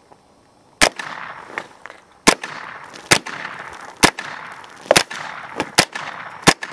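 Smith & Wesson M&P15-22 semi-automatic .22 LR rifle firing about seven shots at a steady pace of roughly one a second, each sharp crack trailed by a short echo.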